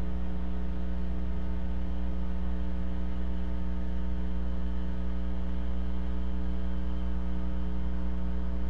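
Steady electrical mains hum in the nest-camera audio feed: a low drone with several fainter, higher steady tones stacked over it.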